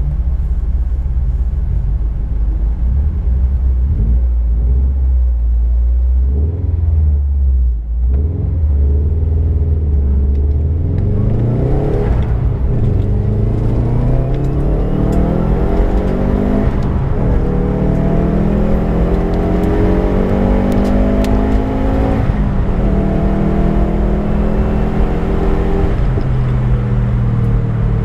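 Subaru Impreza's flat-four engine running low and steady for about ten seconds, then accelerating hard, rising in pitch, with breaks at a few gear changes.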